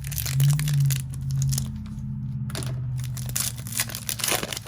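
Plastic wrapping and cardboard being torn and crinkled as a sealed booster display box is opened, over a low steady hum that is loudest in the first second or so.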